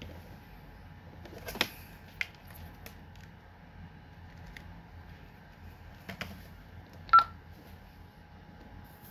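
Scattered clicks and knocks of objects being handled, with one short high chirp about seven seconds in, the loudest sound, over a low steady hum.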